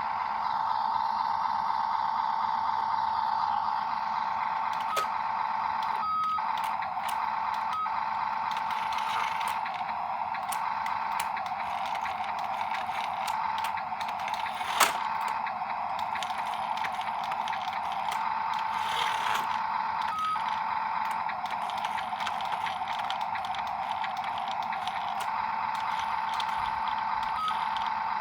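Electric motors and gearboxes of radio-controlled construction models whining steadily, with a few short high beeps and a single sharp click about halfway through.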